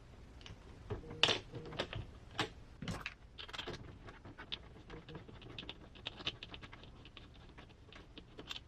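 Small hand tools and metal parts clicking and tapping against an RC crawler's front wheel and axle while the wheel comes off and a wheel hex goes on: a few louder knocks in the first three seconds, then a quick run of light clicks.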